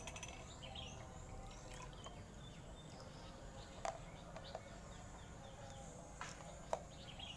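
Quiet steady background noise with faint bird chirps, and a few light clinks of kitchenware.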